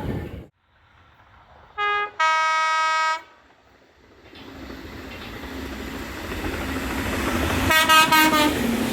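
Train horns: a short low note, then straight after it a longer, higher note held for about a second. Then a train's running noise builds up as it approaches, and near the end it sounds its horn again in a loud blast of several notes.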